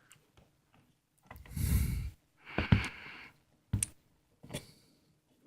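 Handling noise from plugging PC cables: a few sharp plastic clicks as a CPU cooler fan connector is fitted to a motherboard header, with two short breathy rushes in between.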